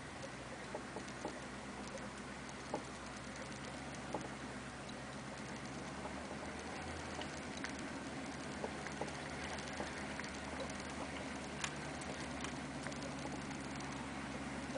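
Cab interior of a 1991 GMC diesel Suburban driving over a dirt trail: a steady low engine drone, with scattered small clicks and rattles from the body and interior as the truck bumps along.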